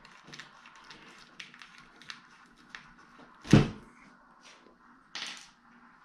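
Smoked plastic side panel of a PC case being handled and fitted against the case: light ticks and taps, one solid thump about three and a half seconds in, and a short scraping rub just after five seconds.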